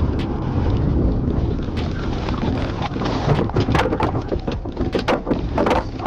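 Heavy rumbling wind buffeting a microphone outdoors, with a quick run of knocks and scuffs in the second half.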